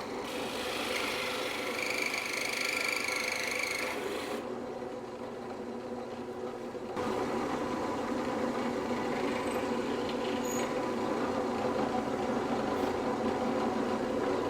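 A shop power tool's motor running steadily while cutting a round wooden cylinder, with a higher cutting whine over the first four seconds or so and a louder, steadier run from about seven seconds in.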